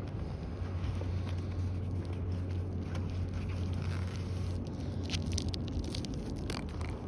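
Scattered scrapes and crackles of hands working at a lint-packed rooftop dryer vent damper, over a steady low hum.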